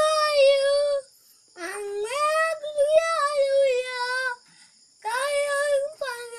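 A young boy singing a Bisaya song a cappella, holding long notes in three phrases with short breaks for breath between them.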